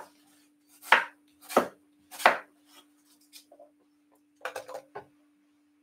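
Knife chopping a green apple on a wooden chopping board: three sharp chops in the first half, then a quick cluster of lighter cuts near the end, over a faint steady hum.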